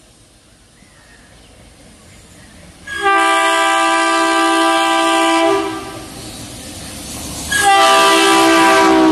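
Indian Railways WDM-3A diesel locomotive, running light, sounding its horn in two long blasts. The first starts about three seconds in and lasts over two seconds; the second starts near the end. The low rumble of its ALCO diesel engine grows as it draws near and fills the gap between the blasts.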